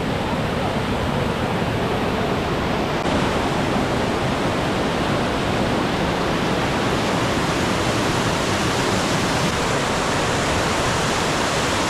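Steady rushing roar of a mountain-stream waterfall pouring hard over rock, running full in spate after heavy rain. It grows slightly louder about three seconds in.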